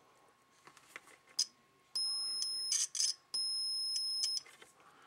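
Multimeter continuity tester beeping twice, a short steady high beep and then a longer one of about a second: the probes are touching a connected path in the lightning arrestor. Sharp clicks of the probe tips on the metal come between the beeps.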